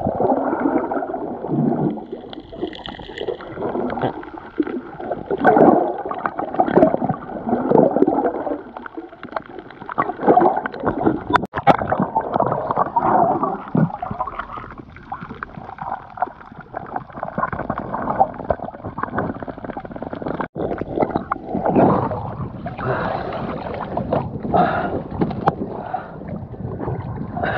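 Water gurgling and sloshing around a camera held underwater, muffled and uneven in surges.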